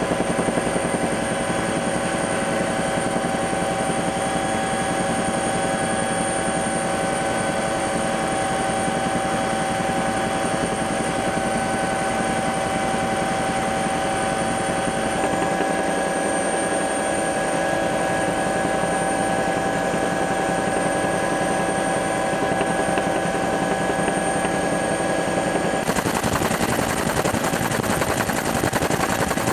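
Steady drone of an aircraft in flight, its engine noise heard close up with several steady whining tones; about 26 s in it turns suddenly harsher and hissier.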